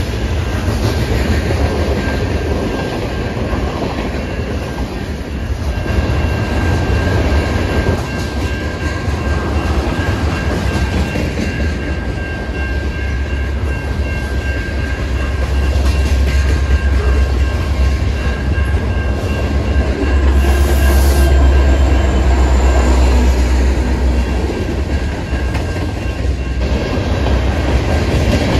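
Freight train cars rolling past close by: a steady, loud low rumble of steel wheels on rail, with a faint high steady ringing through the middle stretch.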